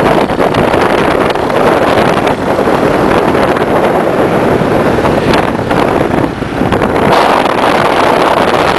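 Loud wind buffeting the microphone from a moving car, mixed with the vehicle's road and engine noise.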